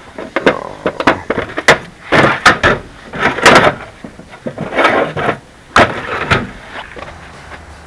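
Tools and metal parts being handled during repair work: an irregular series of loud knocks, clanks and scrapes, about a dozen in all.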